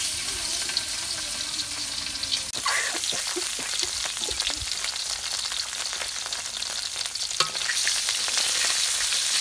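Fish pieces sizzling as they fry in hot oil in a metal wok, the sizzle starting sharply as they go into the oil. The pieces are stirred with a spatula, with a few sharp ticks.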